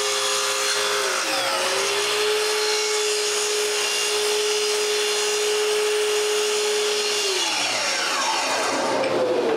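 A woodworking power tool running through wood with a steady motor whine. Its pitch dips and picks back up about a second in, then winds down near the end as a second tone drops away.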